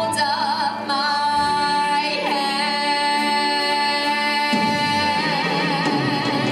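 A woman singing a show tune over instrumental accompaniment. About two seconds in she holds one long note with vibrato.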